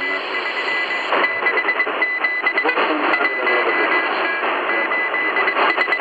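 Shortwave reception at 6000 kHz through a portable radio's speaker: a high-pitched Morse code tone keys on and off in dots and dashes over hiss and crackles of static. A faint, unidentified broadcast can be heard underneath.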